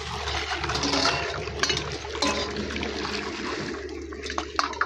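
Water running from a tap and splashing as something is washed under it, with a few short knocks over a steady low hum.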